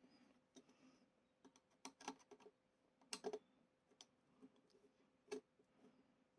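Faint, irregular clicks and taps of a screwdriver working a screw in a plastic model-kit panel, as he loosens it, with small plastic parts being handled; the sharpest clicks come about three seconds in and again a little after five seconds.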